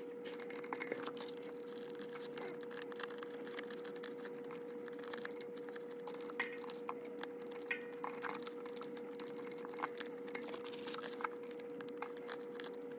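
Scattered light clicks and taps of photocards and plastic binder sleeves being handled, over a steady hum.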